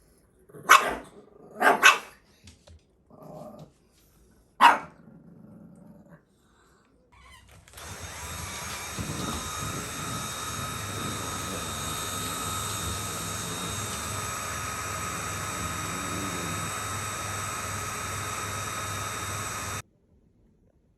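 Pekingese dog barking sharply three times. A few seconds later a steady electric motor with a high whine starts up, runs for about twelve seconds, and cuts off suddenly.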